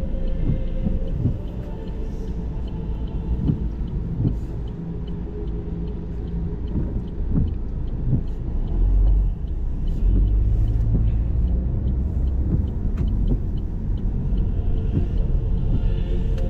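Car cabin while driving: engine and road rumble, growing heavier about nine seconds in, with a faint regular ticking through the middle.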